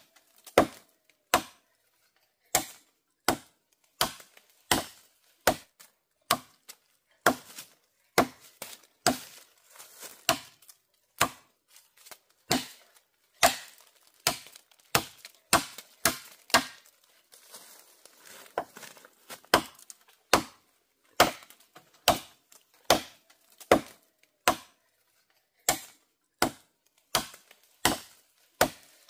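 A blade chopping bamboo in a steady series of sharp strikes, one or two a second, with a short pause of softer rustling about two-thirds of the way through.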